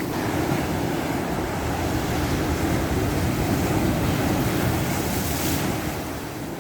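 Ocean waves breaking on the shore: the wash swells up, its hiss peaking near the end before it falls away.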